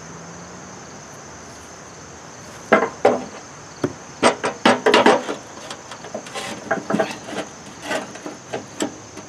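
Irregular metal knocks and clunks as a replacement blade spindle is fed up through the hole in a John Deere 42-inch steel mower deck and seated by hand, starting about three seconds in and loudest around the middle.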